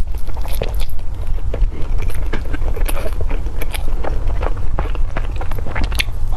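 Close-miked biting and chewing of a soft steamed shaomai dumpling: many short wet smacks and clicks from the mouth, over a steady low hum.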